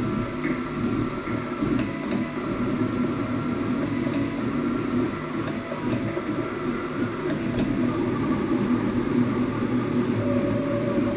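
Ultimaker-clone 3D printer running: a steady fan hum, with the stepper motors whining in short tones that start, stop and change pitch as the axes move.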